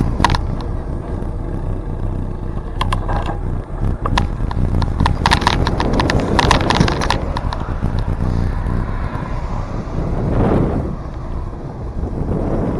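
Steady low wind rumble on the microphone of a moving bicycle, with bursts of rattling clicks about three seconds in and again around five to seven seconds in.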